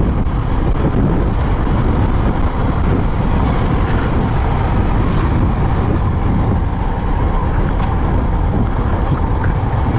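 Steady wind noise on a helmet-mounted microphone while riding a Yamaha R15 V3 motorcycle, with the bike's engine a low drone under the wind.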